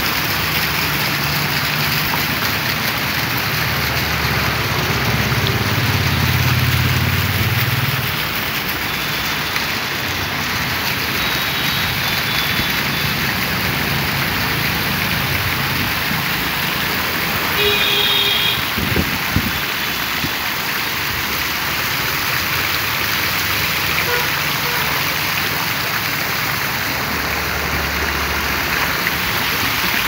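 Fountain jets and a curtain of water streams splashing steadily into a shallow pool, making a constant hiss. Low road-traffic rumble swells underneath twice, and a short horn-like beep sounds a little past halfway.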